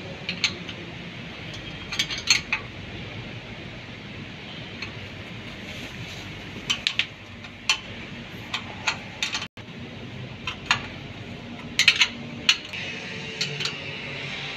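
Steel spanner clinking against hex bolt heads and a steel bracket while a bolt is worked by hand: short sharp metallic clicks in small clusters, several times, over a steady background hiss.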